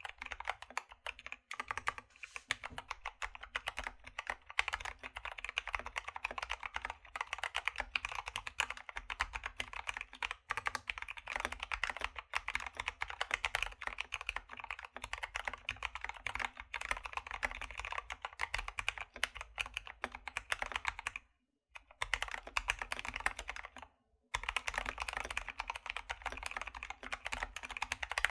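Fast, continuous typing on a modded Keychron K2 V2 aluminium-body mechanical keyboard with lubed Gateron Brown tactile switches, clipped and lubed stabilizers, Drop MT3 keycaps and a foam-filled case. The keystrokes pause twice briefly, about three quarters of the way through.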